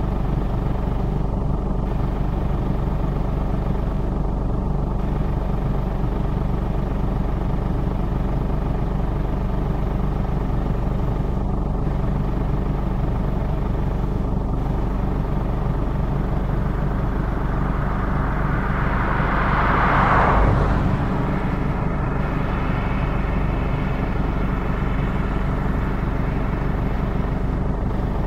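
Valtra T174E tractor's six-cylinder diesel engine running steadily under load while towing a trailed field sprayer across a field. A brief louder rushing swell builds and fades about two-thirds of the way through.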